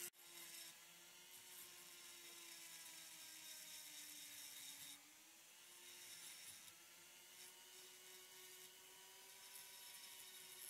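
Handheld rotary tool whining steadily as its small abrasive bit grinds into natural stone, with a faint gritty hiss; the pitch sags slightly under load around the middle, then recovers.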